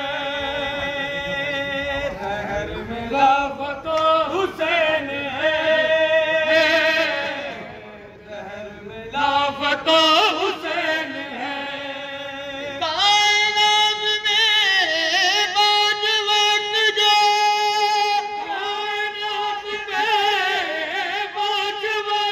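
Men's voices singing a devotional chant into a microphone, with long held, wavering notes. The singing dips briefly about eight seconds in and comes back stronger and more sustained from about thirteen seconds in.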